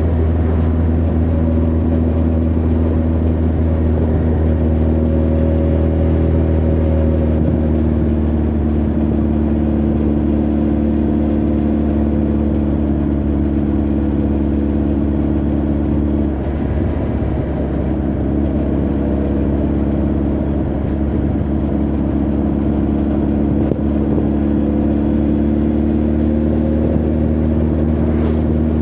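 Honda CB1300 Super Bol d'Or's inline-four engine and exhaust running steadily at cruising speed on the road. About two-thirds of the way through, the note briefly breaks up, then settles back to a steady drone slightly lower in pitch.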